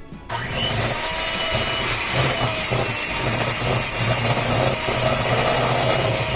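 Electric hand mixer running, its beaters whirring through creamed butter, sugar and eggs in a stainless steel bowl. It switches on just after the start, runs steadily with a low hum, and stops abruptly near the end.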